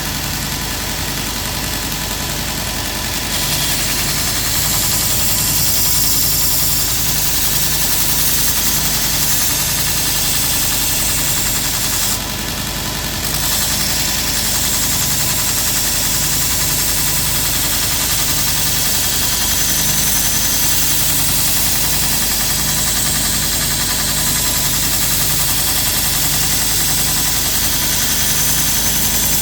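Grizzly 2x42 belt grinder running, with a lopper blade held to the abrasive belt to grind chips out of the edge: a steady motor hum under a grinding hiss. The hiss gets louder about three seconds in and drops off briefly around twelve seconds before picking up again.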